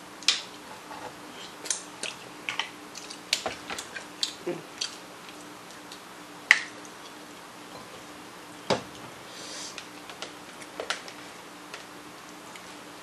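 Irregular sharp clicks and taps of mussel shells and a small seafood fork as mussel meat is picked out and dipped, the loudest about six and a half seconds in, over a faint steady hum.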